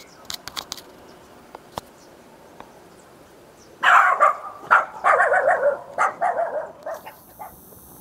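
Dog barking in play: a quick run of barks lasting about three seconds, starting about four seconds in.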